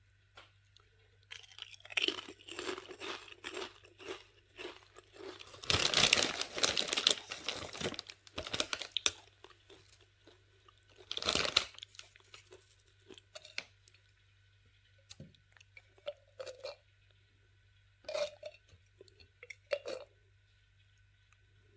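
Someone biting and chewing crunchy Lay's paprika potato chips dipped in mayonnaise. The crunching comes in irregular bursts, heaviest in the first half, with one more burst midway and a few short crunches near the end.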